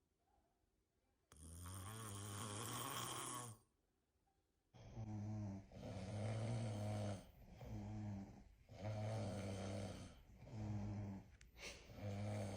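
Person snoring: one long snore starting about a second in, then after a brief silence a run of about six snores in quick, steady rhythm, roughly one a second.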